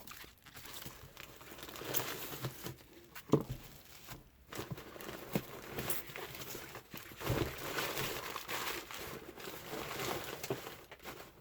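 A shipping package being opened by hand: irregular crinkling and rustling of packaging, broken by short knocks and clicks, the sharpest about three seconds in.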